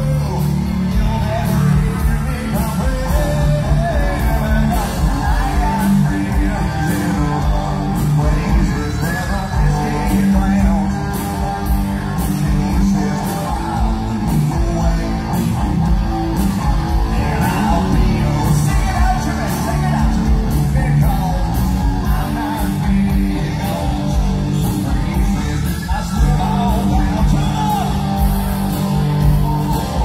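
Live rock band playing loud: electric guitars, bass and drums with a lead singer over the PA, in a large hall, with yells from the audience.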